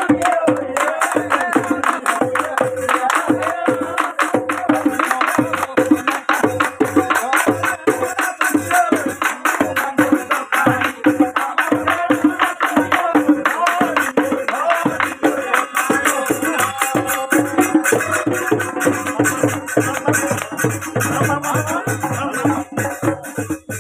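Assamese dhols beaten with a hand and a stick in a fast, driving rhythm, with men singing together over them: a Bohag Bihu husori performance.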